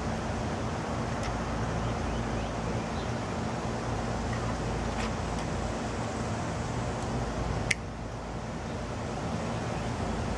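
Hand tools working on an HP inkjet printer's internal parts: a few small clicks and one sharper snap about eight seconds in, over a steady background rumble.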